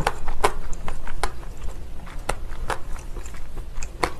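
Close-miked chewing of a mouthful of cold noodles in spicy sauce: irregular wet clicks and smacks of the mouth.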